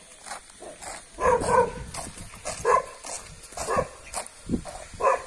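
A dog barking, several short barks spaced about a second apart, starting about a second in.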